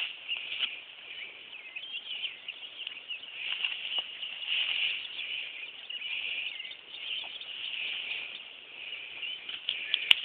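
Many small birds chirping at once in a busy, continuous chorus, with faint scattered rustles of footsteps through grass and a single sharp click near the end.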